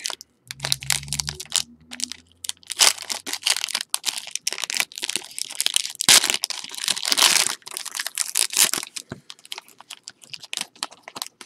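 A trading-card pack wrapper being torn open and crinkled by hand, in irregular bursts of crackling and tearing.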